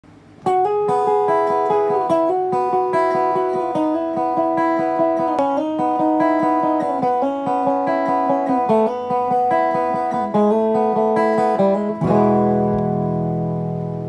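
Electric guitar played clean with the MXR Boost/Line Driver pedal off (bypassed): a picked melodic line of single notes, then a chord struck near the end and left to ring and fade.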